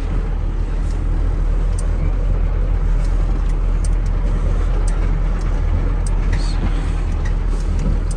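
KamAZ truck's diesel engine running steadily on the move, a continuous low drone. A few faint short creaks or clicks come through at intervals; the driver puts the creaking down to the leaf springs.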